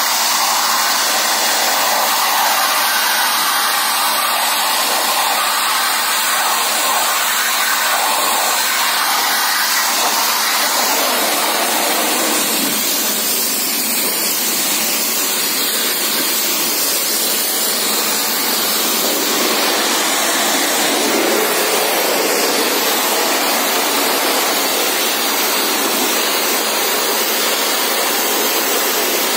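High-pressure washer jet spraying water through a dirty radiator's fins, a loud steady hiss that flushes dirt out of the clogged core. The hiss thins for a few seconds about halfway through, then comes back full.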